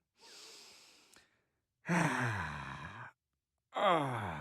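A man making exaggerated, weary dad noises: a breathy intake, then two loud sighs that fall in pitch, the second starting near the end.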